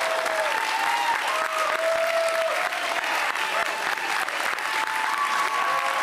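Crowd of supporters applauding and cheering, with long whooping shouts held over steady clapping.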